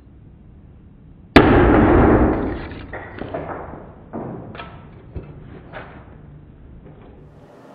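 An overheated 500 µF, 15-volt electrolytic capacitor, overloaded with 120 volts, bursts in the hand with one sharp pop about a second and a half in. A loud rush of venting steam follows and fades over a couple of seconds. A few smaller cracks and pops come after it.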